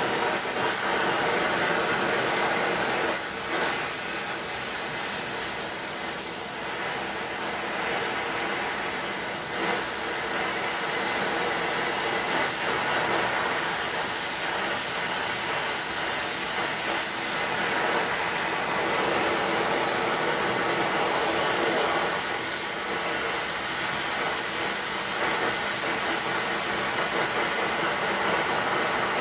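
Steady, loud whirring hiss of a running machine, such as a motor or blower, with a few steady tones running through it.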